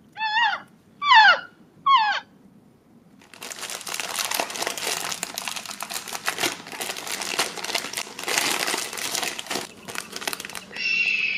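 Crinkling and rustling of a clear plastic bag being torn open and handled. Before it come three short animal calls, each bending in pitch, and a brief higher-pitched call sounds near the end.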